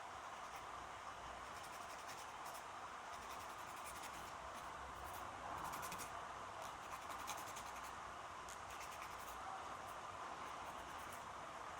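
Nail clipper cutting fingernails: a run of small, sharp clicks, some in quick clusters, over a steady background hiss of room ambience.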